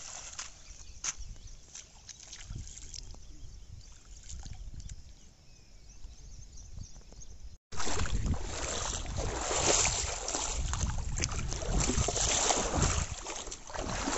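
Quiet water sounds with a few light clicks, then, after a sudden cut about halfway through, louder sloshing of legs wading through shallow river water over stones.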